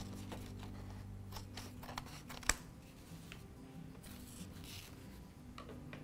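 Scissors cutting and a sheet of paper being handled: a few scattered snips and paper rustles, with one sharp click about two and a half seconds in.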